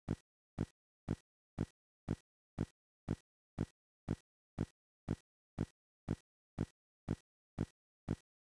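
A short burst of sound repeating about twice a second, evenly spaced, with dead silence between: a stuck, stuttering audio loop, an audio glitch in the recording.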